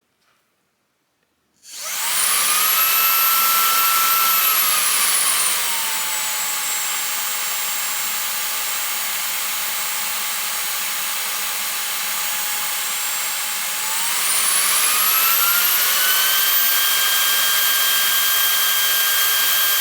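Cordless stick vacuum cleaner's fan motor switching on a little under two seconds in and whining up to speed. Its pitch glides down to a lower, quieter setting, then near the end third glides up to a higher, louder one as the power mode is changed.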